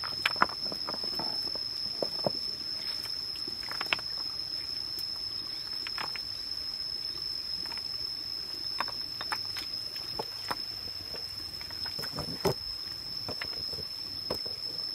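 Stones clicking and knocking against each other as hands lift and shift rocks in a shallow, muddy stream bed, with wet scraping and dabbling in the mud between them; one heavier knock comes near the end. A steady, high insect whine sounds under it all.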